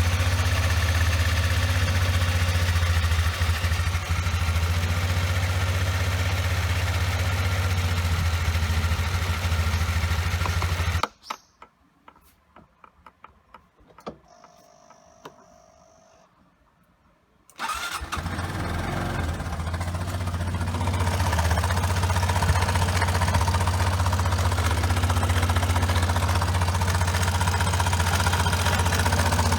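Suzuki Address V125 scooter's single-cylinder four-stroke engine idling, then shut off about 11 seconds in. A few faint clicks follow, and it is restarted about 6 seconds later and idles again.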